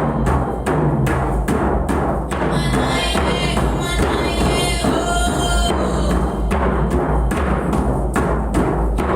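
Music driven by dense, fast drumming, with a few short held tones above the beat.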